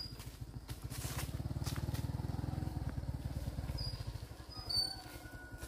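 Small engine running with a fast, even putter, strongest in the middle and weaker after about four seconds. A few short high chirps sound near the end.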